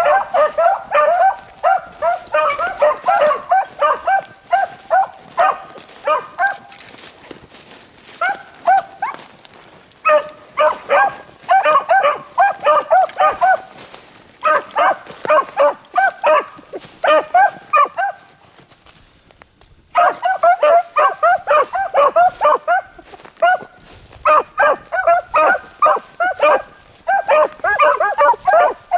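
A pack of beagles giving tongue on a rabbit's track in quick, overlapping yelps and barks. The cry comes in runs, breaks off for a couple of seconds about two-thirds of the way through, then picks up again.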